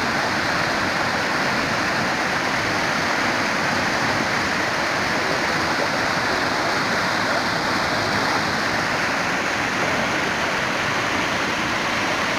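River water rushing over rocks in white-water rapids, a steady, unbroken rushing noise.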